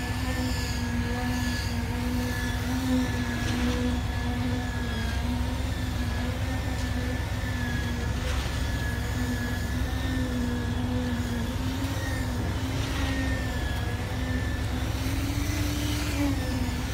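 Truck-mounted concrete boom pump running steadily: a low engine drone with a slowly wavering whine over it, and a faint knock about every four to five seconds.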